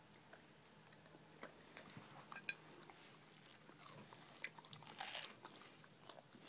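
Faint chewing of a grilled cheese sandwich: a scatter of small clicks and crunches, busiest about five seconds in.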